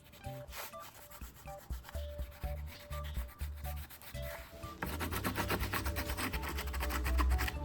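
Rapid abrasive rubbing strokes, as when scrubbing or sanding a part, growing denser and louder about five seconds in, over soft background music.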